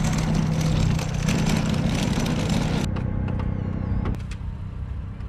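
Shopping cart rolling over parking-lot asphalt, a steady loud rattle that cuts off abruptly about three seconds in, leaving a quieter background hum.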